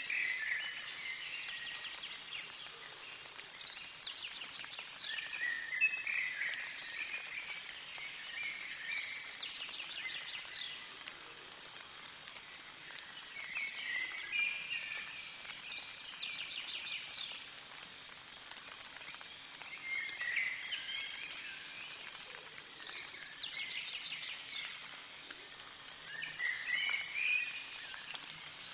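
A songbird singing a short phrase every five or six seconds, each a warble followed by a quick trill, over a steady hiss of rain.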